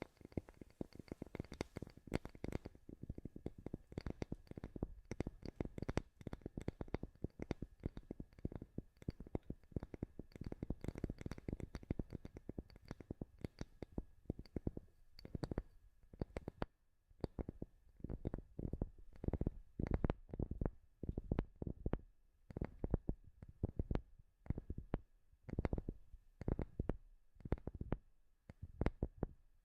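Fast, irregular tapping on wood, many soft knocks a second. From about halfway through it comes in short bursts with brief pauses between them.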